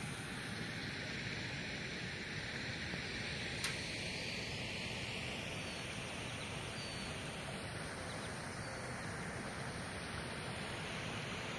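Steady outdoor background noise, a broad hiss and rumble, with one sharp click about three and a half seconds in and a few faint high chirps, likely birds, around the middle.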